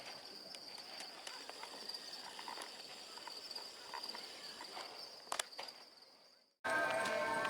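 Insects trill steadily at one high pitch over outdoor ambience, with a few faint clicks and taps. The sound fades out near the end and music cuts in abruptly.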